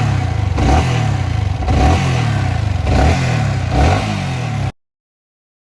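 Yamaha R15 V3's single-cylinder engine blipped repeatedly, rising and falling in pitch about once a second, with a light vibrating noise the owner puts down to loose tappet (valve clearance) adjustment. It cuts off suddenly near the end.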